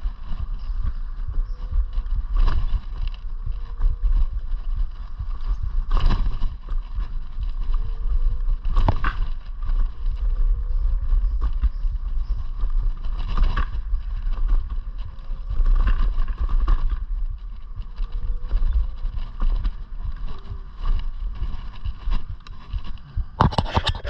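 iScooter E9D electric scooter riding along: heavy wind rumble on the microphone under a steady whine, with a knock every few seconds as it rolls over bumps.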